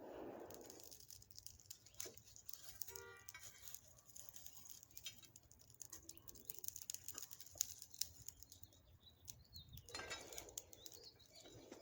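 Charcoal forge fire with faint scattered crackles and ticks. A rush of air from the forge bellows comes at the start and again near the end. A short chirp sounds about three seconds in.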